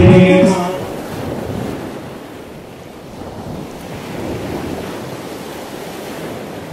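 Music with singing cuts off about a second in, followed by a steady rushing noise that swells and eases slowly, with no distinct events in it.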